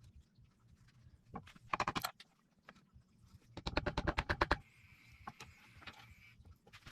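Two short runs of rapid mechanical clicking, about a dozen clicks a second; the second run lasts about a second.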